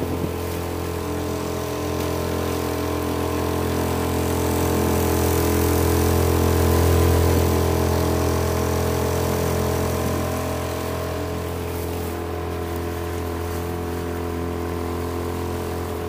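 Honda 2.3 four-stroke outboard motor running steadily, pushing a small boat along, with the rush of water and wind. It grows louder about halfway through, then eases back.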